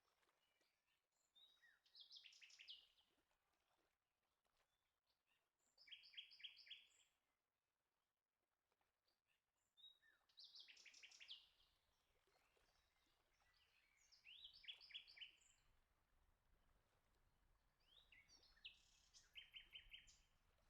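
A songbird singing faint short phrases of quick repeated high notes, five phrases about four seconds apart, each lasting about a second.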